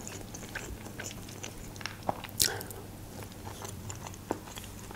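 A person chewing a mouthful of food close to the microphone: soft wet mouth clicks, with one sharper click about two and a half seconds in.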